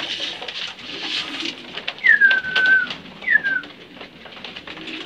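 Grain feed poured from a plastic container into a loft feed trough, with racing pigeons cooing softly. About two seconds in come two high whistles that fall in pitch, the first held for most of a second and the second shorter.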